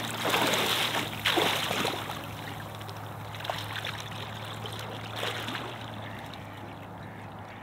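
River water splashing and sloshing around a person's legs as he wades through it in chest waders, in louder surges during the first two seconds, then fainter.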